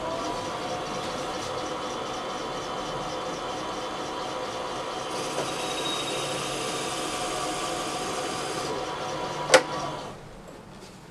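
Wood lathe's motor starting up and running at a steady pitch. From about five seconds in, the hiss of a half-inch twist drill bit, held in vise grips, boring a starter hole into the spinning ambrosia maple blank. A sharp knock near the end.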